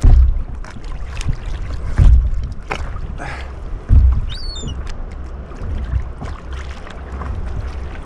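Sea water sloshing and splashing around a swimmer, with three heavy low slaps of water against the microphone about two seconds apart. A brief high chirp comes about halfway through.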